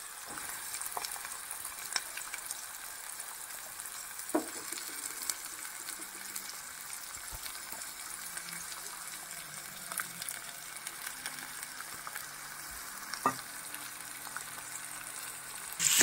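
Sliced onions frying in oil in an aluminium pot: a steady sizzle with scattered small crackles and two light knocks. Just before the end it turns suddenly louder as a steel ladle starts stirring the onions.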